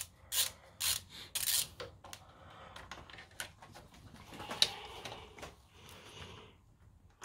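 Ratchet wrench clicking in a few short strokes as the last bolt of a diesel engine's glow plug rail is tightened, then faint handling and rubbing noises with one sharp click a little past halfway.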